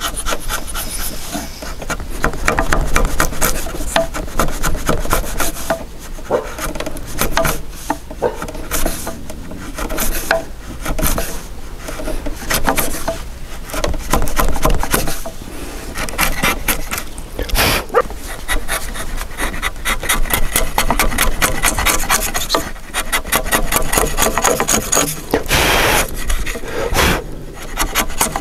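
Wide Korean hanok chisel pushed by hand, paring across a wooden beam: a quick run of short scraping strokes as shavings peel off the wood.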